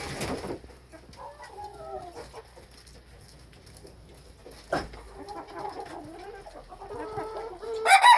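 Chickens clucking softly, with a couple of sharp knocks. Right at the end a rooster begins a loud crow.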